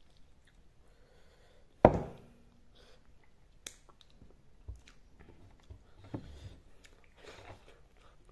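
Quiet chewing and small clicks of a person eating rice and chicken with the hand, with one sharp knock about two seconds in.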